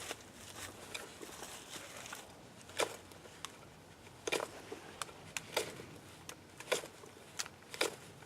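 Bark River Mini Bushcrafter fixed-blade knife shaving and carving wood: a series of about ten crisp, irregularly spaced cuts and snaps, the loudest about three seconds in.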